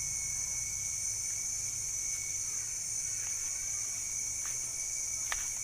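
Steady high-pitched drone of crickets or other insects chirping continuously, with a few faint clicks and short chirps over it.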